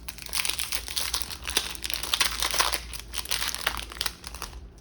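Foil Pokémon booster pack wrapper crinkling in the hands, a dense crackle that stops shortly before the end.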